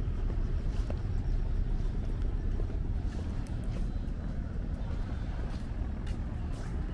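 Outdoor city ambience dominated by a steady low rumble of traffic, with a few faint clicks.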